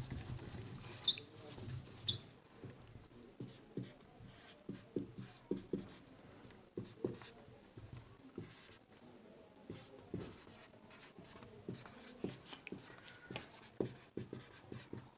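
Marker pen writing on a whiteboard: quick, irregular strokes with scratches and taps as letters and symbols are drawn. Two short high squeaks about one and two seconds in.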